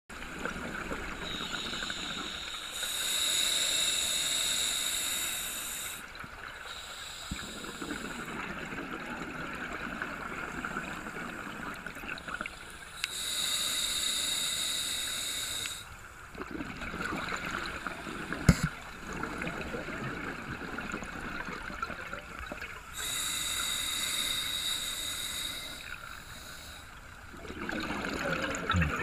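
A scuba diver breathing through a regulator, heard through an underwater camera housing. There are three long rushes of exhaled bubbles about ten seconds apart, with a quieter hiss and gurgle between them, and a single sharp knock just past the middle.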